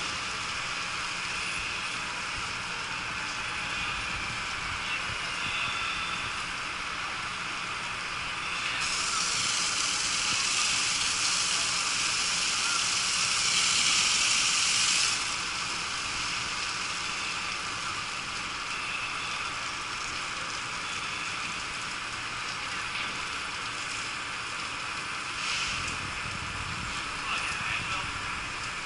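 Fire hose spraying water on a burnt-out bus: a steady hiss that grows louder for about six seconds midway while the jet hits the bus. A brief low rumble comes near the end.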